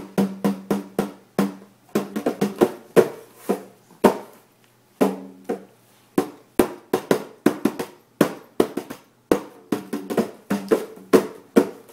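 Hand drum with a skin head slapped by hand in an irregular run of strikes, about three a second. Many of the strikes carry a short low ringing tone from the drum head.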